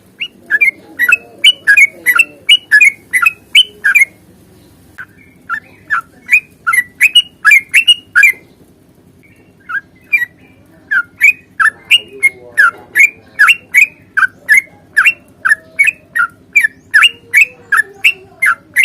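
Yellow-vented bulbul (trucukan) singing long runs of sharp, quick chattering notes, about three to four a second, in three bursts with brief pauses between them.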